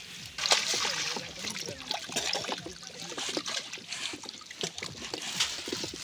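Water splashing and dripping as a mesh net bag packed with small fish is handled and lifted in shallow river water, in quick irregular splashes and drips.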